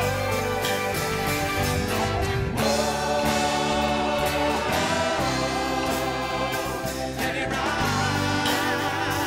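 Live gospel-style worship music: a band with several vocalists singing together in held, sustained notes over keyboard and guitar accompaniment.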